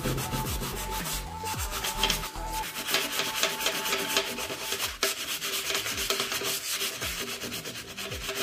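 Sandpaper rubbed by hand over a metal furniture handle in rapid, even back-and-forth strokes, sanding off scratches and stains to polish it.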